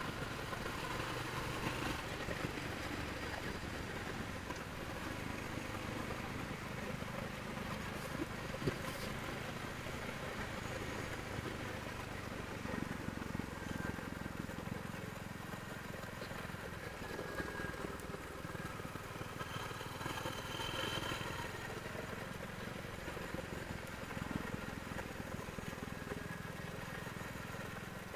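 Royal Enfield Hunter 350's single-cylinder engine running through its stock exhaust, a steady low engine note with slight rises and falls in pitch.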